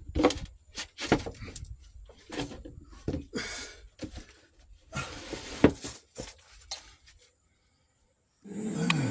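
Irregular clicks and knocks with a few short bursts of hissing noise. About half a second before the end, a louder, steady sound with a low, wavering tone comes in.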